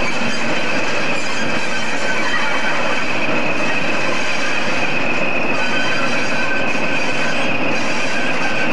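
A pair of British Rail Class 20 diesel-electric locomotives with English Electric engines running along a curve, a steady engine drone with a continuous high-pitched whine over it.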